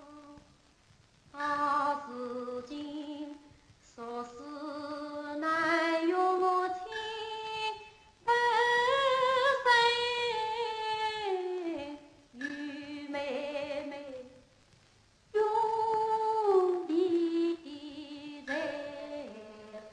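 A woman singing a Yue opera aria in drawn-out phrases that glide up and down in pitch, with short pauses between the lines.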